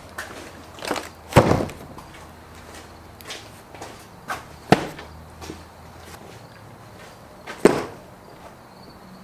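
Cardboard boxes of brake rotors and brake pads being set down on a table: a series of knocks and thuds, three sharper ones about a second and a half in, near the middle and near the end, with lighter knocks between.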